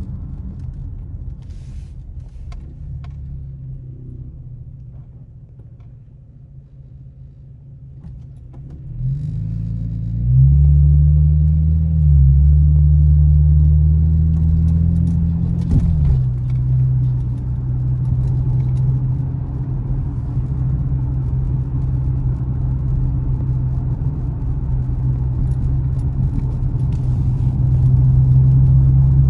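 Camaro engine and exhaust droning low, then picking up under throttle about nine seconds in, its note climbing slowly for several seconds before dropping suddenly, then settling into a steady drone while cruising.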